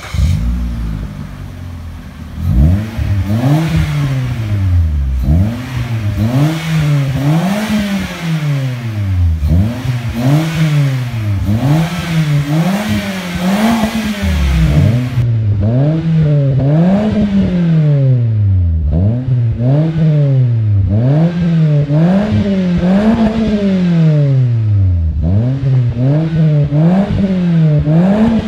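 Suzuki Swift's petrol engine, fitted with an aftermarket cat-back exhaust and a K&N cold-air intake, idling for about two seconds and then free-revved over and over, each blip rising to around 5,000 rpm and falling back, a little over one rev each second.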